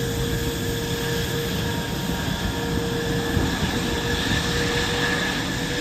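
Jet aircraft engine running steadily: an even rush of noise with a steady high whine over it.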